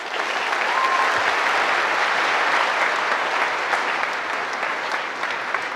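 A large audience of students applauding in an auditorium. The clapping swells within the first half second and then holds steady as a dense, even patter.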